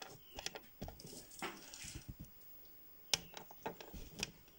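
Scattered light clicks and taps of small plastic balls and a plastic bingo ball cage being handled, coming irregularly with short gaps between them.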